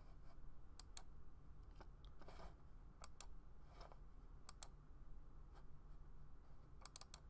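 Faint computer mouse clicks, several coming in quick pairs like double-clicks and a quick run of them near the end, over a low steady hum.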